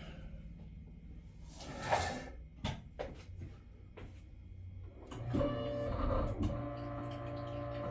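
A short rustle and a few light clicks, then background music with steady held notes begins about five seconds in.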